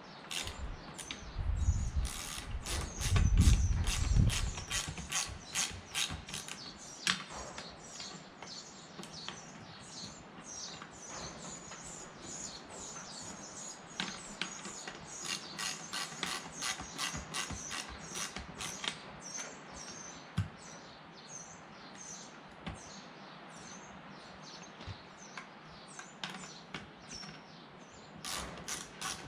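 Four-way ratcheting spanner clicking in quick runs as the propeller hub bolts are snugged up by hand, not yet torqued. The runs thin out in the second half and pick up again near the end. A louder low rumble comes about two to four seconds in.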